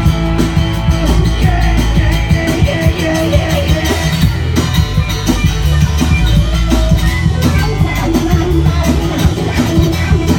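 Live rock band playing an instrumental passage: electric guitar lines over a steady drum kit and bass.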